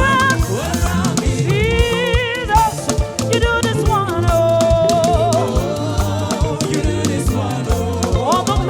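Live band playing an upbeat gospel praise song, with a steady drum-kit beat, bass and a wavering sung melody line.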